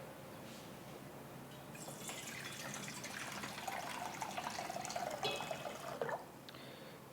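Water being poured into a vessel. A steady, faint pour starts about two seconds in and stops about six seconds in.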